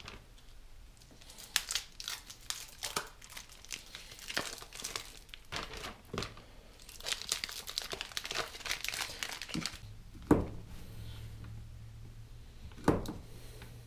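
Plastic packaging crinkling as a hot dog package and a zip-top bag are handled. Later come two sharp knocks of a fillet knife chopping on the countertop.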